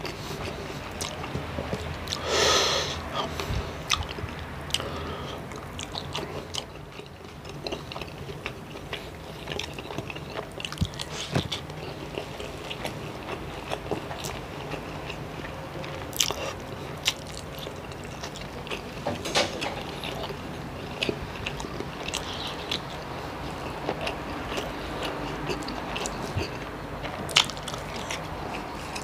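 Close-up sounds of a person chewing and biting rice and adobo chicken innards, with many small wet clicks and smacks. One louder burst of noise comes about two and a half seconds in.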